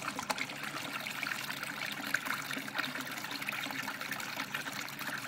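Primed aquaponics bell siphon gushing water out of its drain-pipe elbow and splashing into the water below, a steady pour as the grow bed drains.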